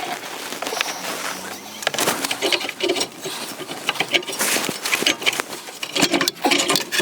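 Irregular clicks, knocks and scraping of hands working loose an EVAP canister and its plastic holder on a car.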